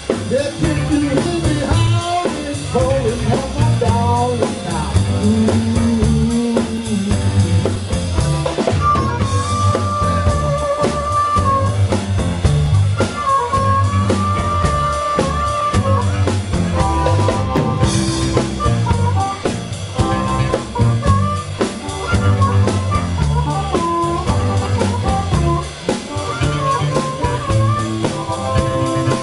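Live blues band playing a shuffle: drum kit, electric bass and a Roland stage piano, with a harmonica cupped against the vocal mic playing long held notes and bends over the groove.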